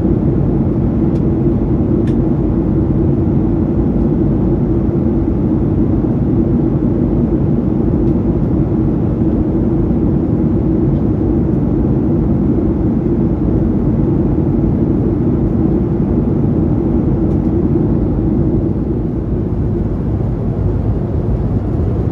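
Steady low cabin noise of a Boeing 737-800 in flight: engine and airflow noise heard from inside the passenger cabin, easing a little for the last few seconds.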